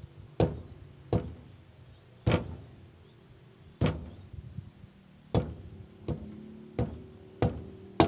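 Sharp knocks of a machete blade chopping at a thin bamboo stick held in the hand, about eight strokes spaced irregularly about a second apart, as the stick is whittled into a snare stake.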